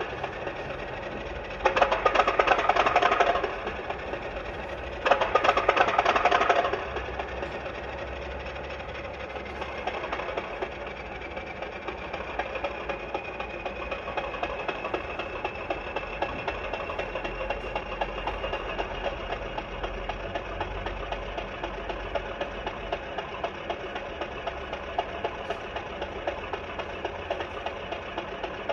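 Class 50 diesel locomotive sound played by a Zimo large-scale sound decoder through a round speaker in an O gauge model: the engine runs with a fast, even knocking beat, with two louder bursts in the first seven seconds. A whine rises slowly in pitch from about ten seconds in.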